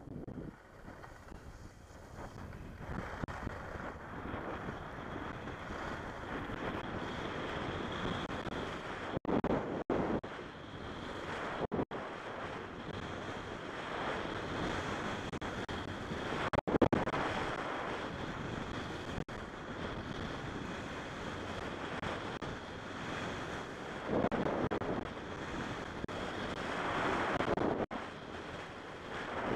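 Wind rushing over the microphone of a skier's camera, with the hiss of skis sliding on packed snow; the rush swells and fades several times.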